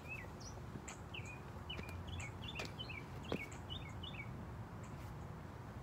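Small bird chirping: a string of short, quick chirps that die away after about four seconds, over faint background noise.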